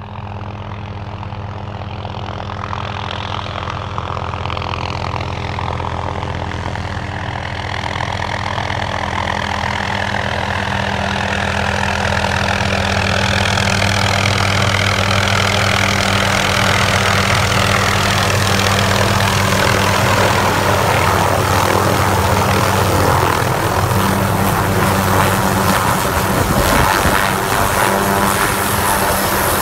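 An MD 500-series turbine helicopter approaching and landing. The rotor and turbine sound grows louder over the first dozen seconds as it comes in to hover, with a falling whoosh as it descends. It then holds steady while the helicopter sits on its skids with the rotor still turning.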